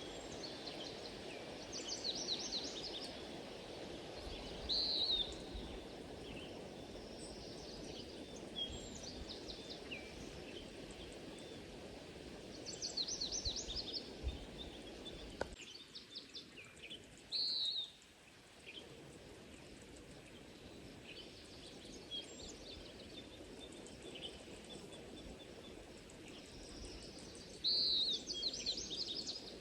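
Birds calling: short high chirps that sweep downward, repeated every few seconds, mixed with bursts of rapid chattering notes, over a low steady background noise that drops away sharply about halfway through.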